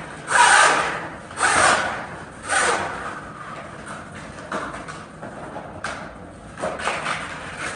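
Scuba harness webbing pulled through the slots of a metal backplate: three long rubbing swishes about a second apart, then quieter rustling and small knocks as the strap is worked through.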